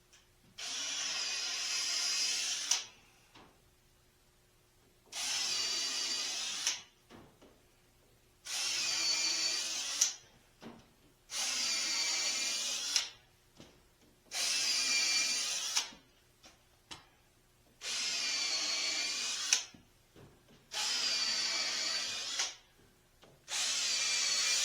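Power drill running into wood in eight short bursts of a second and a half to two seconds each, with about a second between them. The whine sags a little in pitch as it works under load, and most bursts end with a sharp click.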